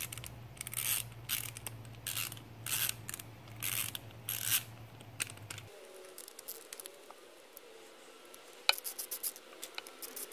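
Screwdriver backing out the small screws that hold a Traxxas Velineon brushless motor to its aluminium motor plate: a run of short scraping, ratchety strokes, then a few sharp clicks near the end.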